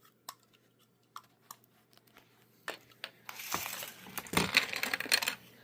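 Toy packaging crinkling and rustling as it is handled, after a few faint clicks in the first two seconds.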